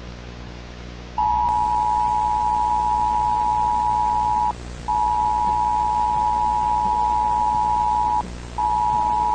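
Two-tone emergency alert attention signal sounding in long, steady blasts of about three seconds with short breaks. It starts about a second in over a low hiss and hum.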